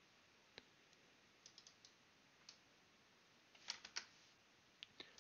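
Faint, scattered computer keyboard keystrokes and clicks, with a quick cluster of louder ones a little under four seconds in.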